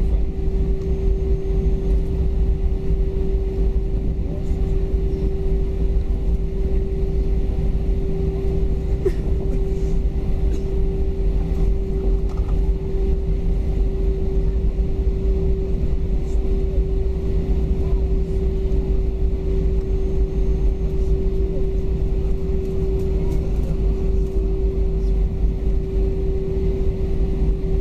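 Cabin noise inside an Airbus A321 taxiing: a steady drone from the engines at idle, with a constant mid-pitched hum and a low rumble underneath.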